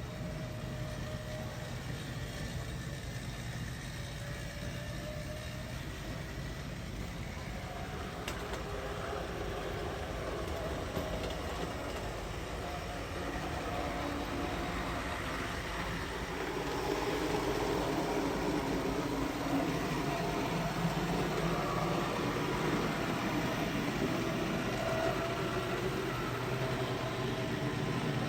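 HO scale Bowser 4-6-6-4 Challenger model steam locomotive running on the track pulling a long train of cars: a steady electric motor whine with the rolling rattle of wheels on rail. It grows louder about two thirds of the way through.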